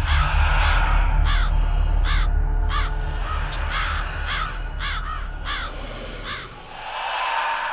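Crow cawing over and over, about a dozen caws at roughly two a second, over a steady low rumble. The rumble fades near the end as a noisy swell rises.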